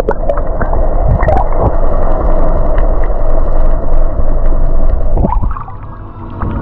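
Boat motor running under water noise and gurgling, with a steady hum; it drops away a little after five seconds in.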